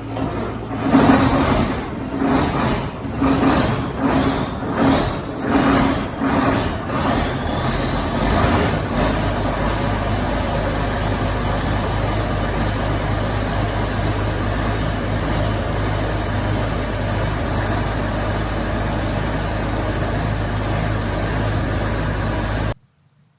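Combine harvester's big diesel engine cold-starting: it cranks and fires unevenly in slow, heavy pulses, catches at about the ninth second with a rising high whine, then settles into a steady idle with a thin high whine over it. The sound cuts off abruptly near the end.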